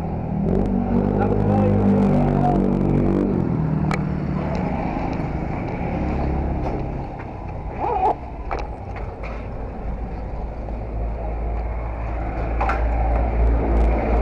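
Road traffic: a motor vehicle engine running with a low rumble. A steady engine note sounds for the first few seconds, with a few scattered clicks and knocks.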